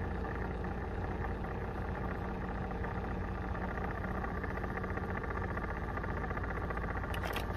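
A steady low mechanical hum that does not change, with a few faint clicks near the end.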